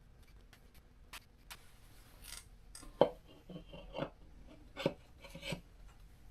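Hands working on a lawnmower engine's sump: scattered small clicks and light knocks with some scraping, the loudest knock about three seconds in.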